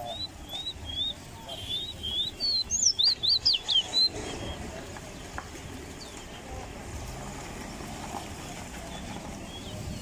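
Caged songbird singing a run of short, high, gliding chirps that quicken into a fast, loud burst of notes about three to four seconds in, then fall silent.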